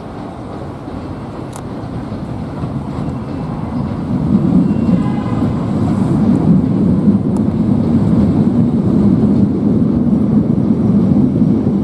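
Southeastern Class 465 Networker electric multiple unit running into the platform, a low rumble that grows louder and steps up about four seconds in.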